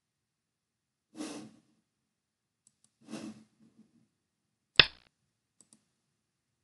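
A person breathing close to the microphone, two breaths about two seconds apart, then a single sharp click about five seconds in, the loudest sound, with a few faint ticks around it.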